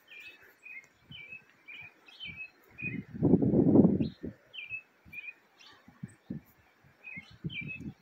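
Many small birds chirping, short repeated notes all through. Low gusts of wind buffet the microphone, the loudest a little after three seconds in.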